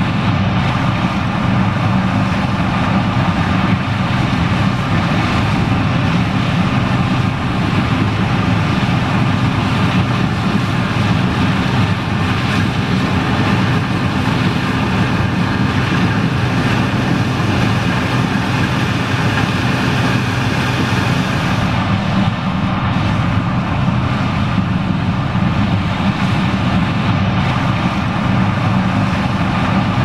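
John Deere 9560STS combine and a tractor running side by side, their engines a steady loud drone under load while the combine harvests corn and unloads it on the go through its auger into a grain cart.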